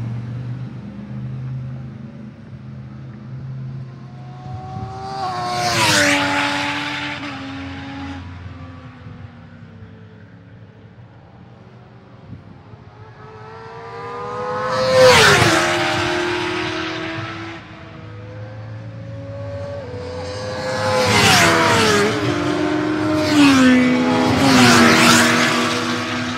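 Racing motorcycles passing at speed on a track: one goes by about six seconds in, a louder one a little before the middle, and a tight group of three or four near the end, each engine note swelling and then dropping in pitch as it goes past.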